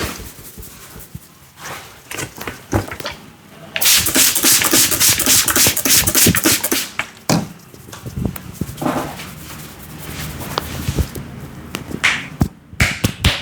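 Barber's hands tapping and slapping rapidly on the head in a head massage. A dense run of fast strikes lasts about three seconds from about four seconds in, with quieter rubbing and scattered taps around it.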